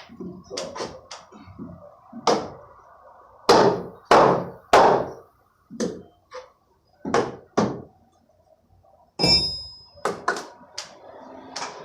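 Hammer blows knocking wooden concrete form boards loose: a string of irregular sharp knocks and thuds on timber, with a short lull and then one ringing metallic clang about nine seconds in.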